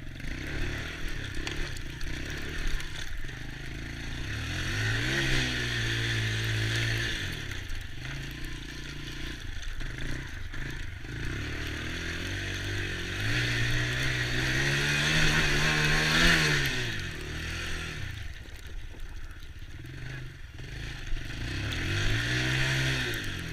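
Small youth ATV engine running and revving, climbing in pitch and dropping back three times as the quad speeds up and slows.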